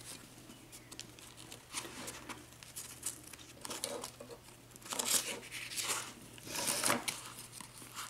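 A stainless-steel lock pick rubbed in and out between sandpaper sheets pressed in a book, giving scratchy rasping strokes that are loudest about five and seven seconds in. This is the pick being sanded and polished.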